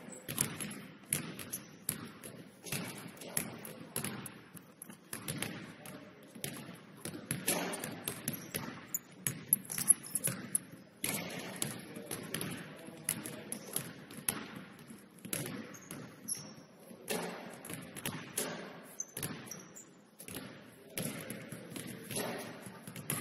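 Basketballs bouncing on a hardwood gym floor, a string of short, irregular thuds.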